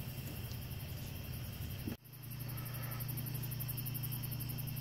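Crickets chirping in a fast, even pulse over a steady low hum, clearer after a brief dropout about two seconds in.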